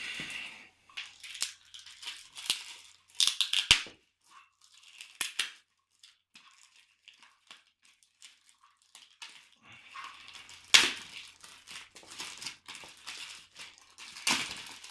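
Packaging being handled: irregular crinkling and rustling with a few sharp knocks, the loudest about eleven seconds in, and a quieter stretch in the middle.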